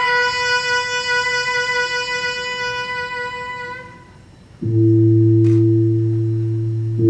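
A long held reedy wind-instrument note fades out over the first four seconds. About two-thirds of the way in, a loud low gong tone starts suddenly and rings steadily, and it is sounded again near the end.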